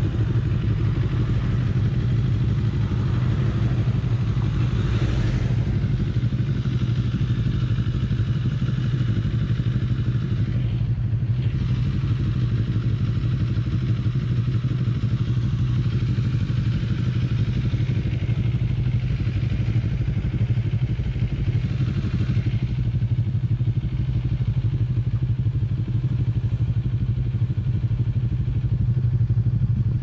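Motorcycle engine idling steadily, a constant low hum.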